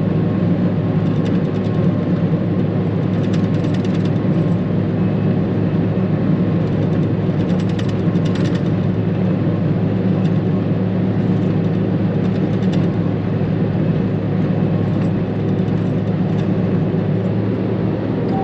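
Heavy diesel farm machinery running steadily while chopping: a constant low engine drone with faint rattles now and then.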